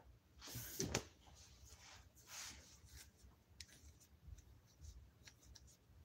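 Faint handling noises: a soft rustle with a sharp click about a second in, a second rustle, then a few light scattered ticks. The grinder is not running.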